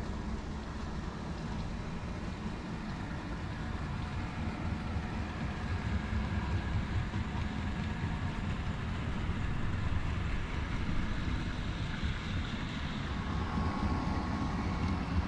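OO gauge model train running on the layout, its wheels rumbling along the rails and getting gradually louder, with a faint steady motor whine near the end.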